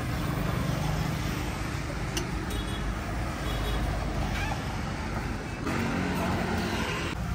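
Road traffic: motor scooters and cars passing, a steady low rumble with no single loud event.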